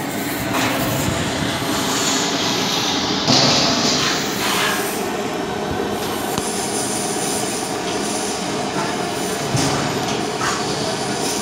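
Steady roaring hiss of a gas blowtorch flame, with a brief sharper hiss about three seconds in.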